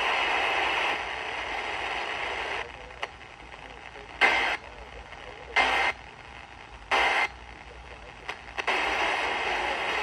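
Emergency Alert System end-of-message tones relayed over an FM radio's speaker: three short, harsh digital data bursts about a second and a half apart, marking the end of the flash flood warning. Steady hiss from the radio comes before them, drops away, and returns near the end.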